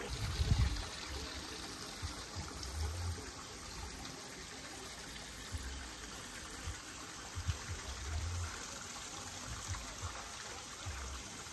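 Water from an infinity pool's overflow trickling steadily, with a few low thumps underneath.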